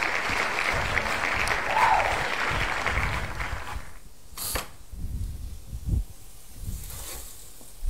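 Applause that breaks off about four seconds in, followed by a sharp click and a few dull low thumps.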